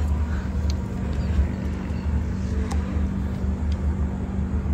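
Steady low outdoor rumble with a constant low hum underneath and a few faint ticks.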